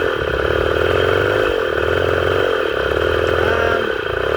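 Farm motorbike engine running while being ridden, its revs rising and falling several times.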